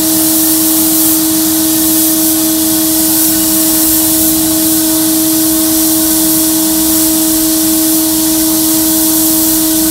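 Glass bead blasting in a blast cabinet: the air blast gun's steady loud hiss as it strips paint and rust from a sheet-metal panel, over the steady hum of the cabinet's dust-collector vacuum.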